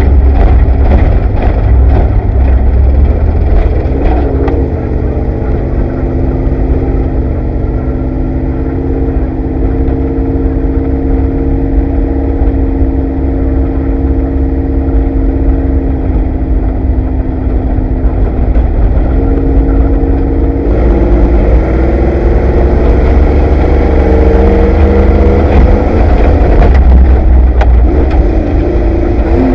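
Ford Bronco desert race truck heard from inside the cab: the engine runs at a steady high pitch for long stretches, changes pitch about twenty seconds in and wavers near the end, over a heavy low rumble. The truck rattles in the first few seconds.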